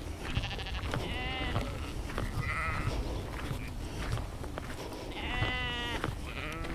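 Sheep bleating: three quavering bleats, the last one longer, a little after five seconds in.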